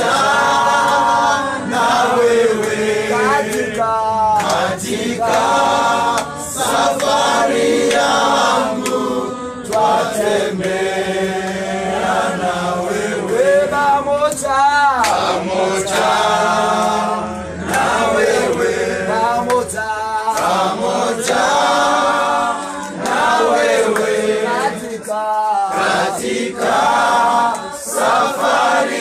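A group of people singing a Swahili hymn together in chorus, phrase after phrase with short breaks between.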